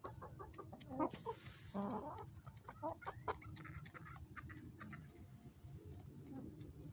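Hens clucking softly, a few short calls in the first three seconds, over scattered light clicks and taps as they peck grain from a hand.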